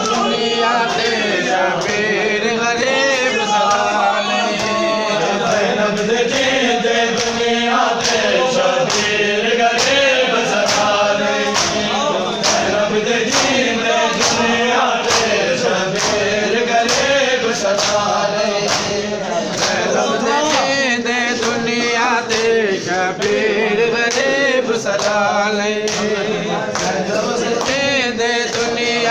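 Crowd of men chanting a noha, a Shia mourning lament, in unison, with a steady rhythm of hand slaps from chest-beating (matam) keeping time under the voices.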